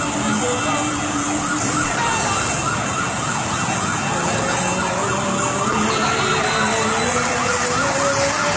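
Many motorcycle engines running and revving together as a group ride moves off, their pitches rising and falling over one another.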